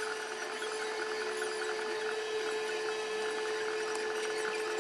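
A steady, even machine hum on one constant tone, with faint rubbing and rustling as a cloth wipes a small engine part.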